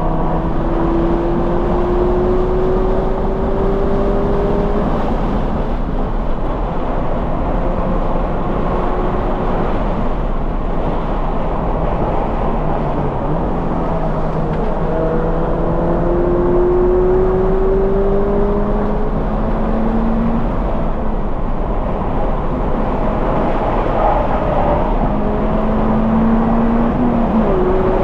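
2020 Toyota 86's 2.0-litre flat-four engine breathing through a Corsa cat-back exhaust, run hard on a race track: its pitch climbs steadily under acceleration and drops back at shifts or lifts several times, over constant wind and tyre noise.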